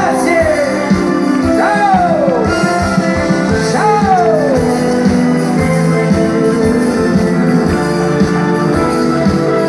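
Live pop band playing on stage, heard from the crowd: a steady drum beat under held chords. In the first few seconds there are three sliding notes, each falling in pitch.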